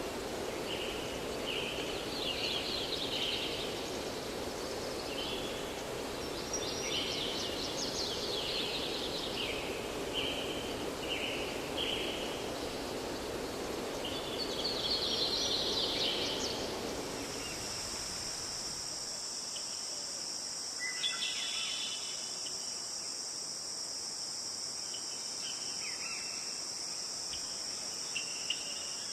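Birds singing in repeated short chirping phrases over a steady low rushing background. About two-thirds of the way through, the sound changes abruptly to a steady high insect trill, typical of crickets, with the background dropping away and only a few bird calls left.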